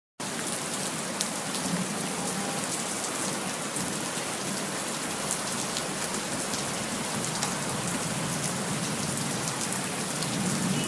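Steady rain falling on a surface, a dense even hiss scattered with small drop ticks, cutting in suddenly at the start.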